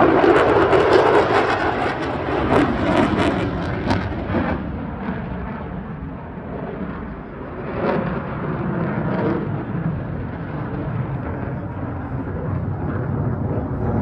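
Jet aircraft passing at an air show: a loud, crackling noise for about four seconds, then fading to a lower rumble, with a smaller swell about eight seconds in.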